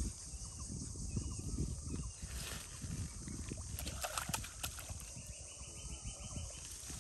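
Water splashing in a brief flurry about four seconds in, as a hooked fish struggles at the surface on the line of a bamboo fishing pole, over a steady high hiss.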